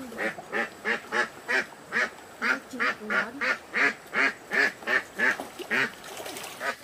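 Animal calls in a steady series of short calls, about two or three a second, with a brief pause near the end.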